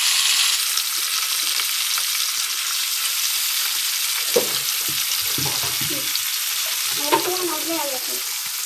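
Pieces of fish frying in hot oil in a pan: a steady sizzle, with two short knocks about four and seven seconds in.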